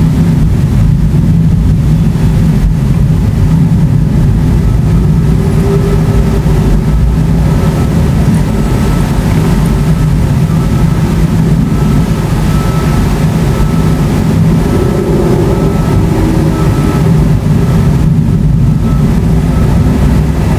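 Continuous low rumbling of thunder from a supercell thunderstorm, rolling on without a break and holding a steady loudness.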